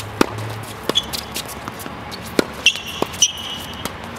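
Tennis ball being struck by racquets and bouncing on a hard court during a doubles rally: several sharp pocks at irregular intervals.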